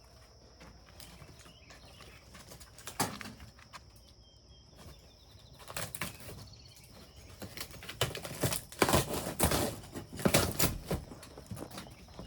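Scraping, rustling and knocking from hands and tools working at a fitting on the camper, loudest in a busy cluster about eight to eleven seconds in. A steady high chirring of crickets runs underneath.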